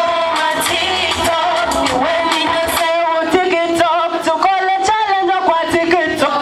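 A woman singing into a microphone over backing music, her amplified voice holding and bending through sung notes.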